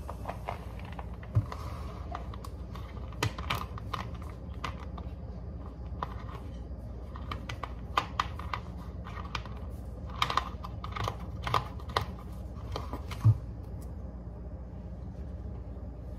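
Irregular light clicks and taps of small objects being handled on a kitchen counter, loudest near the end, over a steady low hum.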